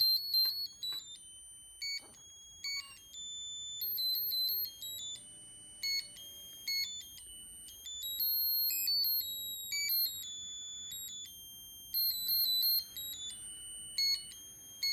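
Small electronic buzzer playing a tune of high, beeping notes that jump up and down in pitch, several notes a second.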